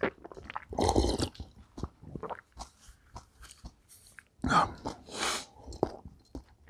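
A person eating: chewing and crunching in irregular spells, with small clicks of mouth and food noise, loudest about a second in and again around five seconds in.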